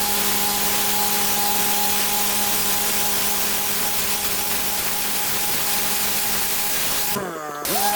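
Pressure washer running, its high-pressure water jet hissing steadily against patio paving over the steady note of the machine. About seven seconds in the jet cuts out briefly, the machine's pitch dipping, then the spray starts again.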